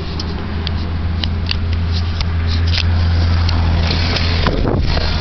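Truck engine idling, heard from inside the cab as a steady low hum, with light clicks from the camera being handled. About four and a half seconds in the hum changes as the driver's door is opened.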